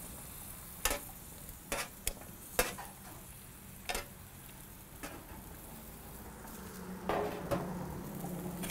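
Metal tongs clicking against a metal sheet pan and grill grate as asparagus spears are laid on a hot grill, about eight sharp, separate clicks. Underneath runs a steady sizzle of food cooking on the grate.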